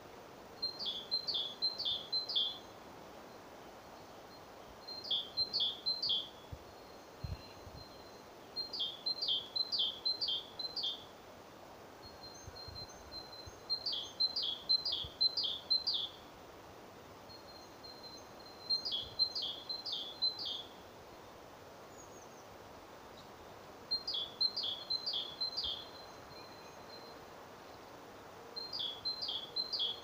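A songbird singing the same short phrase over and over: four or five quick, high, clear notes, each phrase about a second and a half long and repeated every four to five seconds. A few faint low knocks from the great spotted woodpecker pecking at the bark fall between the phrases.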